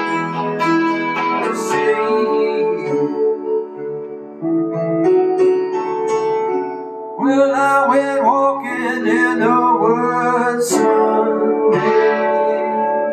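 Music: an acoustic guitar song playing, with plucked and strummed chords and a melody line that bends in pitch through the middle, without sung words.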